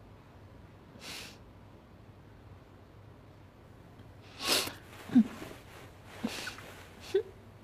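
A person's breath sounds: a soft puff about a second in, a sharp, louder puff through the nose or mouth about four and a half seconds in and a weaker one near six, with two brief low murmurs in between.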